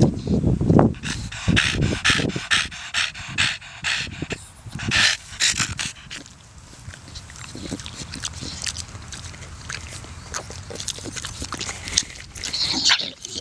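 Staffordshire Bull Terrier panting in quick, even breaths, about three a second, for the first few seconds. Then quieter, irregular breathing and movement noises, with a louder breathy burst near the end.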